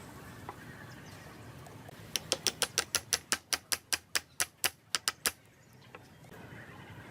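A quick run of about fifteen sharp taps, roughly five a second, starting about two seconds in and stopping a little after five seconds, over a low steady background hiss.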